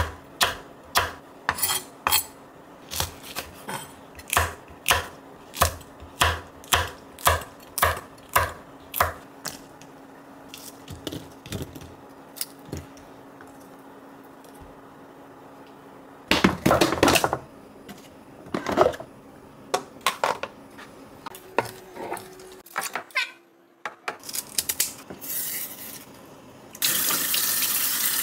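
Henckels chef's knife slicing red chili peppers on a wooden cutting board: a steady rhythm of knocks, about three every two seconds, for roughly nine seconds. Then scattered clinks of a spoon and small ceramic dishes. About a second before the end a kitchen faucet turns on and water runs steadily.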